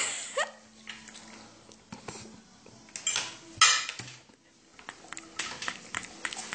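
Fork and utensils clinking and scraping against a ceramic dinner plate in a string of separate clicks, the loudest about three and a half seconds in, with a quicker run of small clinks near the end.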